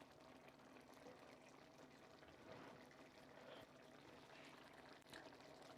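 Near silence, with faint steady bubbling from a tomato-based sauce simmering in a pan and a few faint taps.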